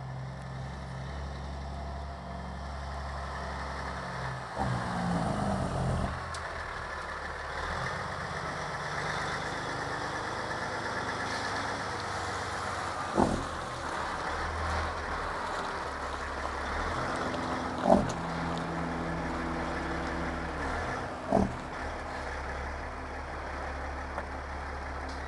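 Peterbilt semi-truck's diesel engine running steadily at low revs as it rolls past, with a brief rise and fall in engine speed about five seconds in. Three short sharp sounds cut through later on, the second the loudest.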